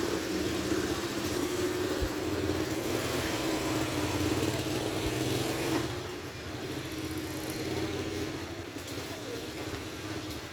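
A motor vehicle running with a steady droning tone, dropping in level about six seconds in.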